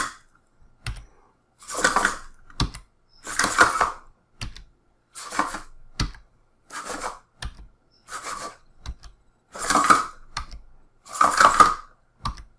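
Two ROBOTIS MINI humanoid robots moving on their XL-320 servos: about eight short bursts of servo whirring and plastic clatter, roughly one every second and a half, with small clicks and taps in between.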